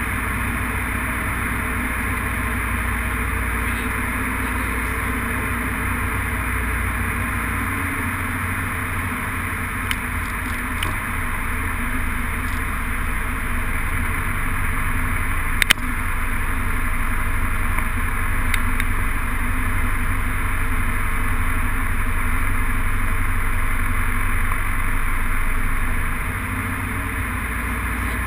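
Single-engine light airplane's engine and propeller running steadily, heard inside the cockpit on approach to the runway. A single sharp click comes about halfway through, and the level drops slightly near the end.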